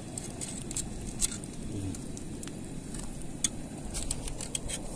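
Wooden pole prodding and scraping at a hole in wet reef rock, giving scattered sharp clicks and ticks over a steady low background noise.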